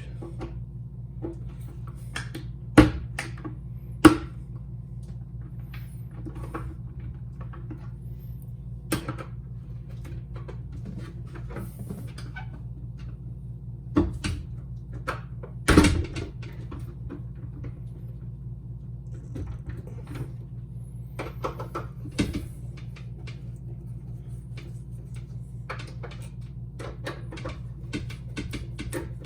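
Scattered clicks and knocks of door handle and latch parts being handled and fitted back together, with a few sharper knocks about 3, 4 and 16 seconds in, over a steady low hum.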